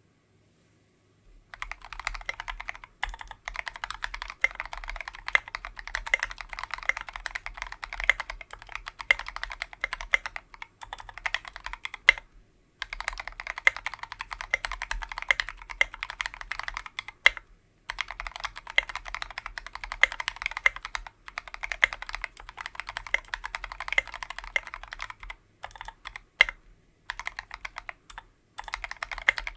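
Fast typing on a KBDfans Tofu 60% keyboard with a brass plate, lubed Tealios V2 linear switches and SA-profile keycaps: a dense, continuous run of keystrokes starting about a second and a half in, broken by a few short pauses.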